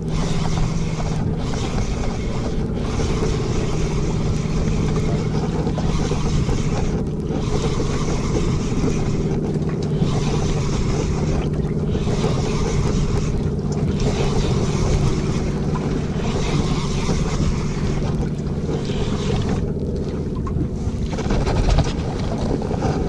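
Outboard motor idling with a steady low hum, under gusty wind noise on the microphone that briefly drops away every second or two.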